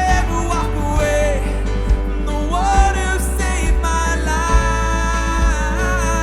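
Live worship band playing: drums, bass, synth, piano and guitar, with a kick-drum hit about once a second under a lead melody that slides between notes.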